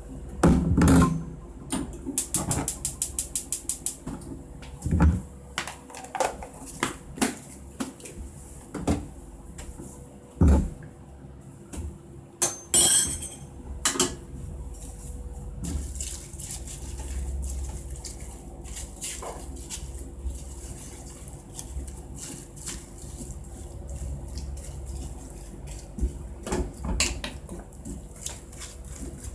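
Home cooking sounds as a pot of napa cabbage is seasoned and filled: scattered knocks and clatter of containers and the pot, with a quick run of clicks about two seconds in and a short hiss around the middle. Cabbage leaves are piled into the pot over a faint steady hum.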